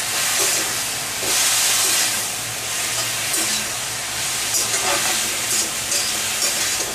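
Cauliflower florets sizzling in hot oil in a metal kadai, stirred and tossed with a flat metal spatula that scrapes and clatters against the pan in strokes, with a steady hiss of frying beneath.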